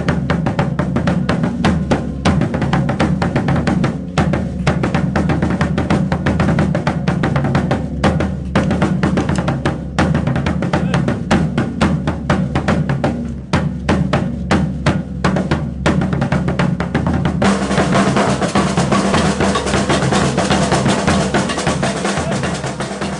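Maracatu drum ensemble playing a dense, driving rhythm on deep bass drums (alfaias) and snare drums (caixas). A steady high noise joins the drumming for the last few seconds.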